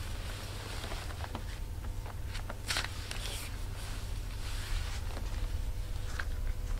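Light clicks and rustling of a patent high-heel sandal's metal ankle-strap buckle being undone and the shoe being slipped off the foot, with the sharpest click about two and a half seconds in, over a steady low hum.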